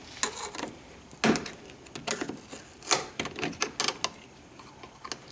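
Irregular small clicks and taps of metal hardware being handled: a door latch strike plate and its screws being fitted against the wooden door frame.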